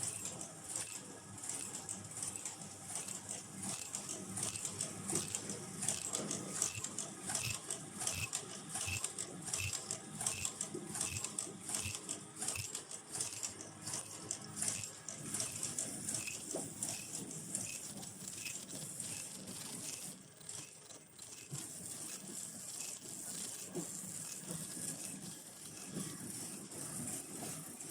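Automatic face-mask production and bagging line running, with fast mechanical clicking and rattling and a short high tick repeating about twice a second.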